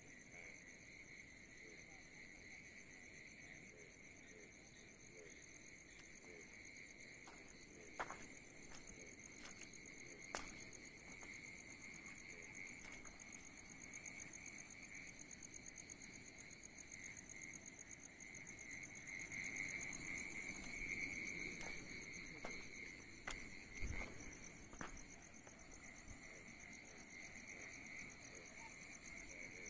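A steady chorus of crickets and other night insects at two pitches, a high pulsing trill over a lower continuous chirr. A few sharp knocks cut through it, around 8 and 10 seconds in and again near 24 seconds.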